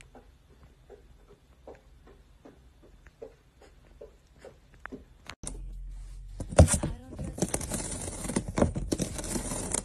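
A cat's paws tapping softly on a wooden floor as it walks, two or three steps a second. About five seconds in this gives way to louder crunching and tearing as a cat bites into the edge of a cardboard box.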